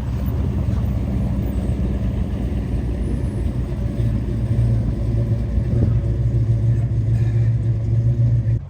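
A car engine running with a steady low rumble that grows louder about four seconds in and cuts off suddenly near the end.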